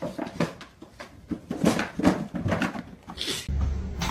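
A pet animal making a series of short vocal sounds in quick succession.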